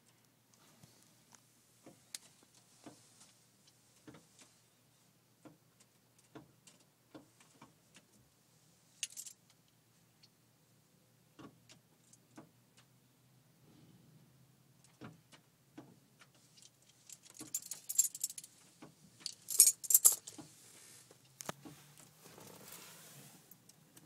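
A bird pecking at a car's side mirror, with irregular sharp taps about one or two a second. In the last third the taps give way to a louder flurry of rapid tapping and rattling as the attack intensifies.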